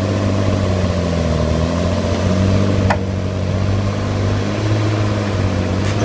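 Diesel engines of heavy logging machines, a crawler dozer and a log loader, running together in a deep steady drone whose pitch wavers slightly as the dozer pushes the stuck loader. A sharp click comes about three seconds in.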